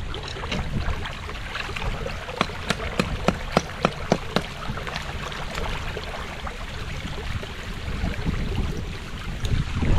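Storm water flowing and splashing through a drain outfall, with a run of sharp clicks a little over two seconds in that lasts about two seconds.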